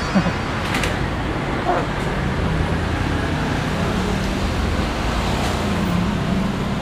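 Steady road traffic: a continuous rumble of passing vehicle engines with a low hum that slowly shifts in pitch.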